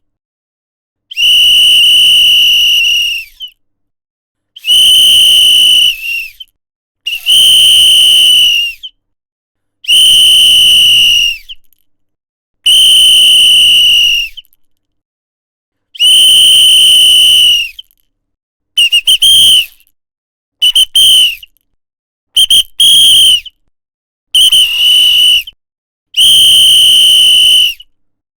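A whistle blown in a series of loud, high, steady blasts, each about one and a half to two seconds long with short pauses between. In the second half it switches to quick short toots in twos and threes, then one wavering blast, before a final long blast.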